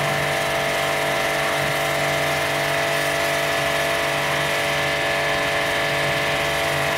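StarQ W3 1800-watt electric pressure washer running steadily: the pump motor hums under the hiss of the high-pressure water jet spraying from the gun.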